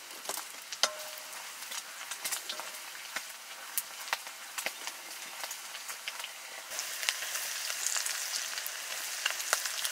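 Pork frying in hot oil for curry, a steady sizzle scattered with sharp spattering pops. The sizzle grows louder about seven seconds in.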